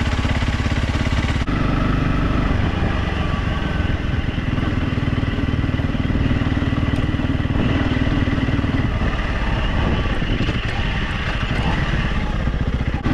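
Motorcycle engine running steadily while the bike is ridden in gear, its note shifting a little with the throttle, with a brief dip near the end.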